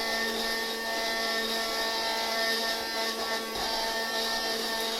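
A 4.8-volt, 30-watt cordless handheld vacuum cleaner running steadily: a small electric motor's whine over the hiss of rushing air.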